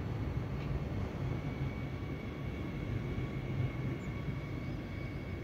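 Rhein-Ruhr-Xpress double-deck electric multiple unit (Siemens Desiro HC) running past at a distance: a steady low rumble with a faint, steady high-pitched whine over it.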